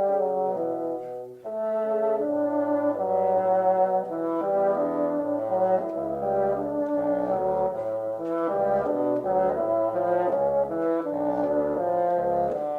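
Background music played on brass instruments, with horn-like held notes moving over a bass line; it dips briefly about a second and a half in.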